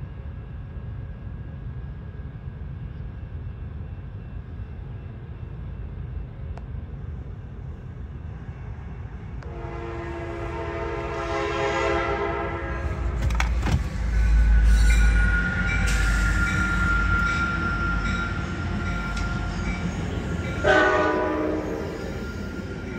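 Sounder commuter train sounding its multi-note air horn in a long blast about ten seconds in, then the train rumbling past with a steady high tone over the rumble, and a second short horn blast near the end. Before the horn there is only a low steady rumble.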